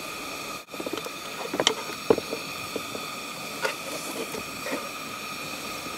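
Steel cooking pot and its lid clinking and knocking as boiled potato chunks are tipped out into a bowl. The sharpest clinks come about one to two seconds in, with a few softer knocks later, over a steady faint hum.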